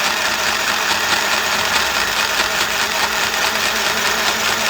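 Mini electric sewing machine running steadily at speed, its motor whirring and the needle mechanism chattering rapidly. It is running through the cloth without forming stitches: the needle is not picking up the bobbin thread.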